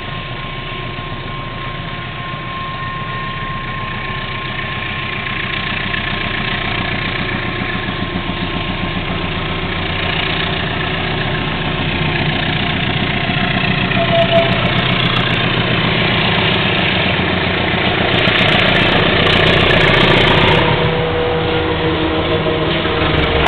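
General Electric diesel-electric freight locomotive running under power as it approaches with a train of loaded hopper cars, its engine beat growing steadily louder. A steady high tone sounds for the first few seconds.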